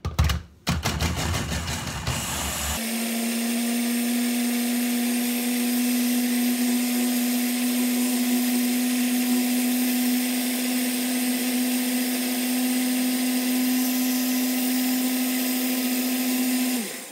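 Electric blender mixing a protein shake: a rough, uneven start for about three seconds, then a steady motor hum that drops in pitch and stops near the end.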